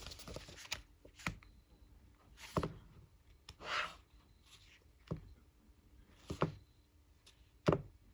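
Fineliner pen working on paper: scattered sharp taps and clicks, with a couple of short scratchy strokes around the middle.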